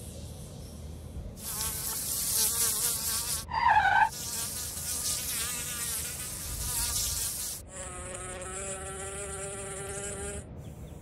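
Fly buzzing, starting about a second and a half in with a wavering pitch as it flies close, with a brief loud swooping whine about three and a half seconds in. From about eight seconds the buzz turns steadier and lower as the fly hovers.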